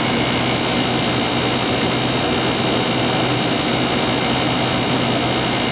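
Fedders AUP05F2K 5,400 BTU window air conditioner running steadily, its fan blowing air over a steady low hum from the rotary compressor. The earlier odd noises are gone and it sounds normal: the unit has built up pressure and is cooling.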